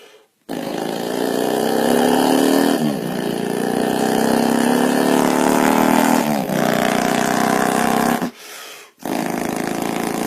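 A man's vocal imitation of a Harley-Davidson motorcycle with Screaming Eagle pipes, voiced into a can: a loud, steady buzzing engine note. Its pitch drops briefly twice. It breaks off about eight seconds in, then starts again.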